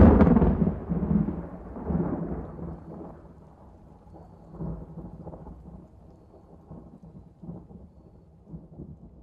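Thunder: a loud clap right at the start rolls away into a low rumble that fades over a few seconds, with a few fainter swells of rumbling later on.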